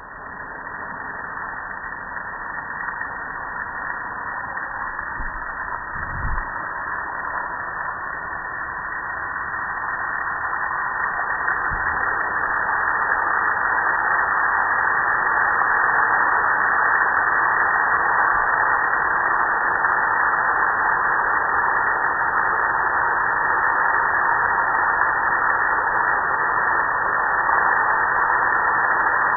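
Water spraying steadily onto a metal gas grill: a continuous hiss that grows louder over the first dozen seconds and then holds steady.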